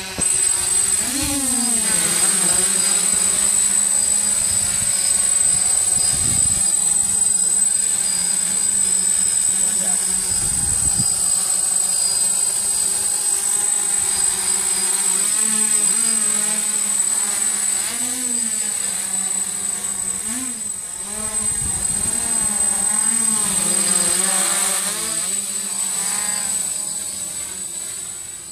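DJI F550 hexacopter's six electric motors and propellers buzzing as it hovers and manoeuvres, the pitch rising and falling as the motors speed up and slow down.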